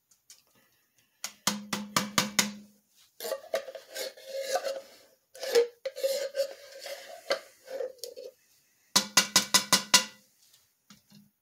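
A silicone spatula working canned blueberry pie filling in a foil-lined cast iron Dutch oven. There are two runs of five or six quick, sharp taps with a short ring, one near the start and one near the end. Between them come several seconds of scraping and rubbing.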